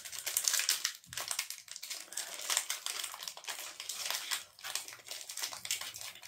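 Disney Lorcana trading-card booster pack wrapper crinkling as it is opened by hand, a steady crackle of many small rustles.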